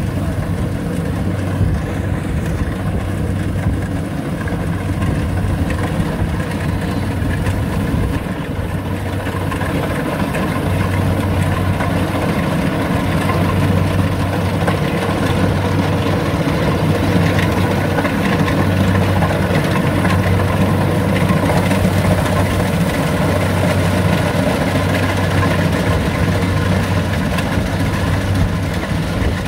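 A rice combine harvester's engine running steadily, with a low hum that swells and fades every few seconds.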